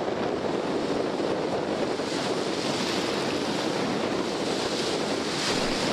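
Steady wash of small waves breaking in the shallows, with wind rushing across the microphone.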